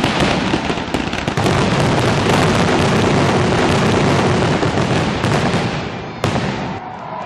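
Aerial fireworks going off in a dense barrage: many shells bursting and crackling in quick succession, with one sharp bang about six seconds in and the barrage thinning near the end.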